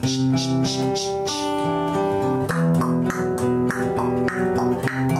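Takamine acoustic guitar fingerpicked in a steady arpeggio with even, straight eighth notes, every note the same length. A shaker ticks evenly along with the notes for about the first second and a half.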